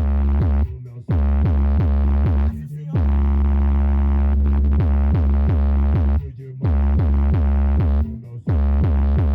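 Bass-heavy electronic music played loud through a car sound system with Eros SDS 2.7K subwoofers, with a deep, constant sub-bass under quick falling bass drops about three a second. The music cuts out briefly a few times.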